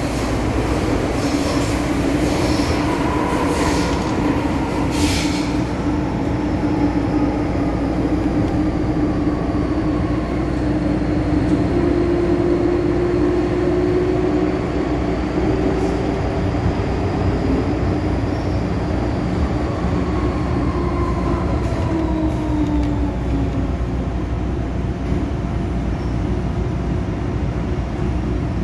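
Interior running noise of an MTR Island Line M-Train under way: a steady rumble of wheels on track, with whining tones that slowly drift up and down in pitch and a few sharp clicks in the first seconds.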